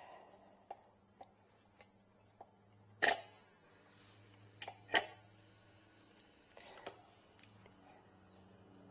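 Scattered light clicks and two sharper knocks, about three and five seconds in, from small metal tool parts and the aluminium bed plate being handled, over a faint steady low hum.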